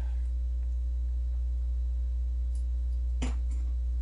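Steady low electrical hum, with one short, sharp click about three seconds in.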